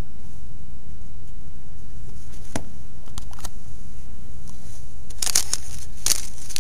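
Handling noise as a hand reaches for a box of stickers on a desk: a click and a few small ticks, then a short burst of rustling about five seconds in, over a steady low hum.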